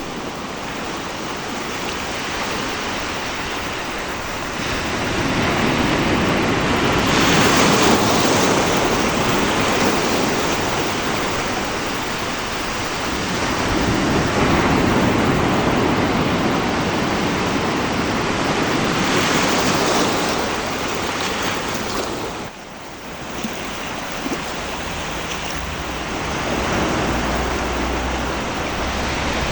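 Sea waves breaking and rolling up a shore: a continuous rush of surf that swells louder and eases off about every six seconds.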